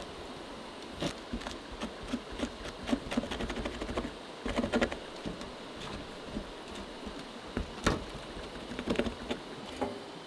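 A Marttiini sheath knife shaving and scraping dry wood into kindling shavings on a metal table: a run of irregular short scrapes and clicks. Partway through, the blade scrapes hemp rope into loose fibres for tinder.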